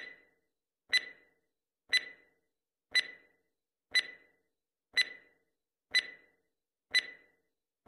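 Countdown timer sound effect ticking once a second, each tick a sharp click with a brief ringing tone.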